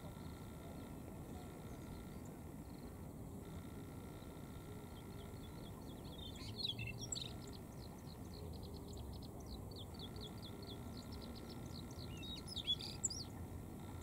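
Male Siberian rubythroat singing: a loud warbled phrase about six seconds in that runs on into a fast series of short repeated high notes for about three seconds, then a second loud phrase near the end. A low steady background rumble lies under it.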